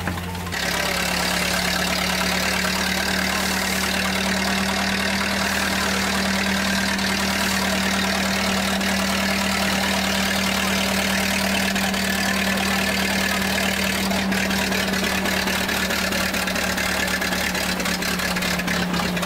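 Old threshing machine running, driven by a small stationary engine: a steady engine hum under the thresher's constant whirring noise. The level steps up slightly about half a second in, then holds steady.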